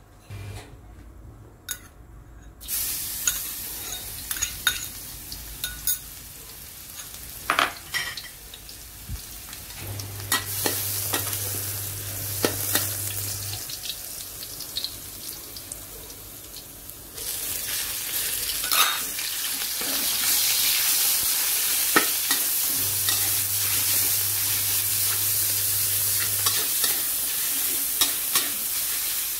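Chopped garlic and then minced pork sizzling in hot oil in a wok, stirred with a metal spatula that scrapes and taps against the pan. The sizzle starts a few seconds in and gets clearly louder about 17 seconds in.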